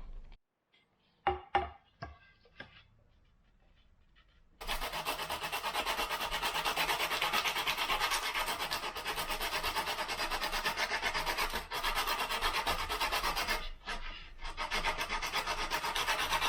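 A few light knocks, then from about four and a half seconds in, fast back-and-forth strokes of sandpaper rubbed over wood, pausing briefly twice near the end.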